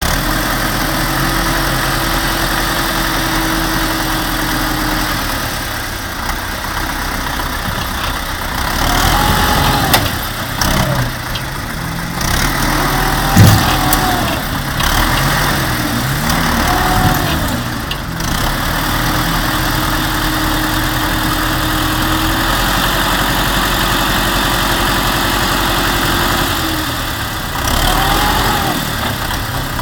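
Vehicle engine running with a steady note, then revving up and down over and over, then settling back to a steady note. A single sharp bang about thirteen seconds in.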